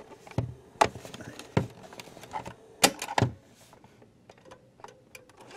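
Sharp mechanical clicks and knocks as the Panasonic RQ-309S cassette recorder's keys and case are handled: about five loud ones in the first three and a half seconds, then lighter ticks. Nothing comes from the speaker, not even a pop at power-on, a sign that the amplifier side is dead while the tape mechanism works.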